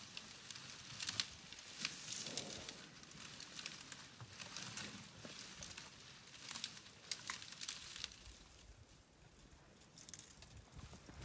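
Dry vegetation crackling and rustling, with irregular sharp snaps scattered through; it eases off for a couple of seconds near the end.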